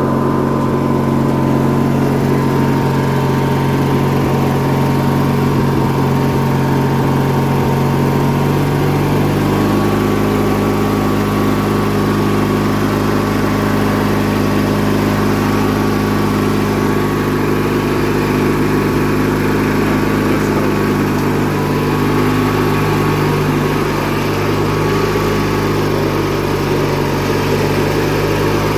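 Engine of a 1997 MTD Yard Machines lawn tractor running steadily, its pitch shifting slightly about nine seconds in.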